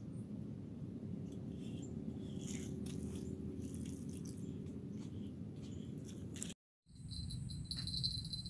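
Outdoor ambience with a low steady rumble and scattered light clicks and ticks from a fishing rod's spinning reel being handled. After a short break about two-thirds in, a steady high, pulsing insect trill comes in.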